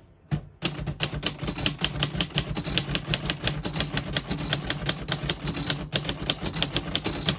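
A 1949 Royal Quiet De Luxe manual portable typewriter typing a sentence: a quick, steady run of key and typebar clacks that starts just under a second in, with a short break near 6 s. The keys strike cleanly, none of them skipping or sticking.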